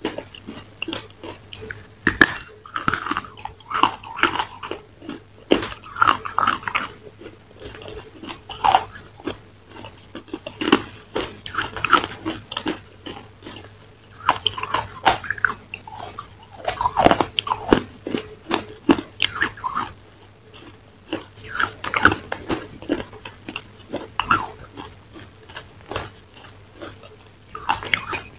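Close-miked eating: a person biting and crunching hard, brittle pieces, with irregular crisp crackles and chewing.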